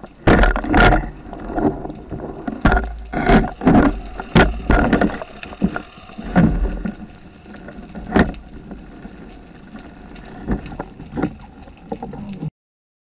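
Underwater swimming noise heard through a waterproof camera housing: water rushing past with irregular knocks and thumps of handling against the housing. It cuts off abruptly near the end.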